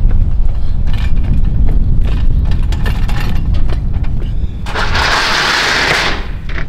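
Wind rumbling on the microphone, with light clicks and rattles from an aluminium hand truck being wheeled over asphalt. A loud hiss of about a second and a half begins near the end.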